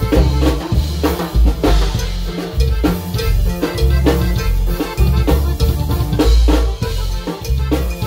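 Loud dance music with a drum-kit beat, about two strokes a second, over a heavy bass line.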